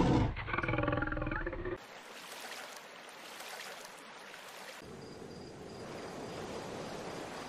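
A lion calling, pitched calls that cut off suddenly a little under two seconds in. Then only a faint steady hiss, like water.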